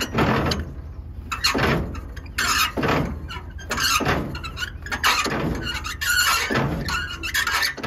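Trailer tongue jack's crank being turned by hand, its metal squealing once on each turn, about once a second.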